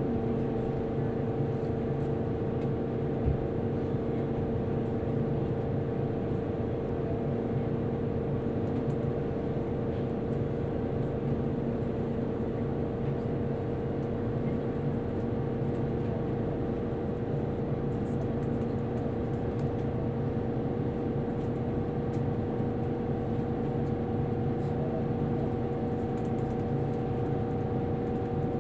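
Steady hum in the cabin of a Shiokaze limited-express electric train standing at a station, with two steady whining tones from its onboard equipment running while stopped. A single faint knock comes about three seconds in.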